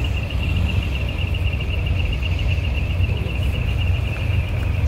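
Diesel truck engine idling, a steady low rumble, with a thin high-pitched tone pulsing rapidly over it.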